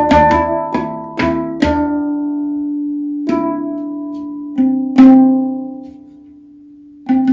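Handpan notes struck by hand, each ringing on after the strike: a quick run of notes, then fewer and longer-ringing ones, the loudest about five seconds in. The sound dies down almost to nothing near the end before playing starts again.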